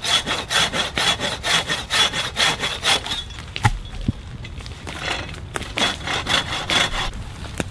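Hand pruning saw cutting through a tree branch in quick back-and-forth strokes, with a pause of about two seconds halfway before the sawing resumes.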